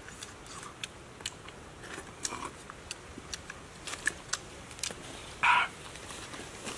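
Eating sounds: scattered small clicks and smacks of chewing, with a louder slurp from a bowl about five and a half seconds in.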